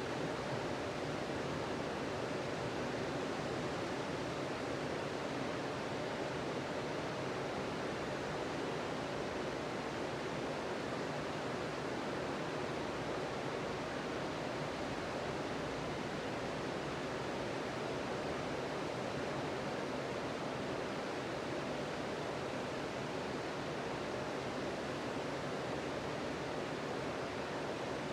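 Sea surf on a sandy beach: a steady, unbroken wash of breaking waves with no single crash standing out.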